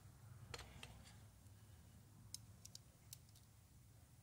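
Near silence broken by a handful of faint, sharp clicks scattered through, from small parts being handled.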